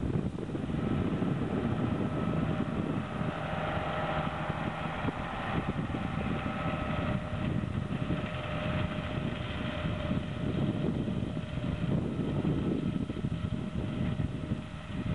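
New Holland tractor running steadily under load while pulling a Monosem eight-row maize planter, with a faint steady whine above the engine through the middle.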